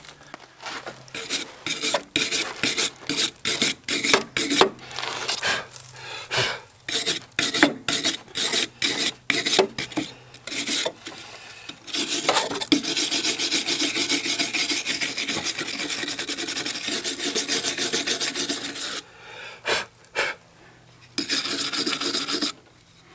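A hand tool scraping back and forth in rasping strokes: separate strokes at first, then about six seconds of fast, continuous rasping, and a few more strokes near the end.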